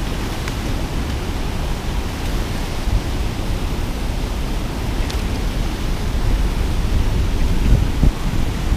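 Steady rush of churning, foamy water, with a low rumble that gets a little louder in the last few seconds.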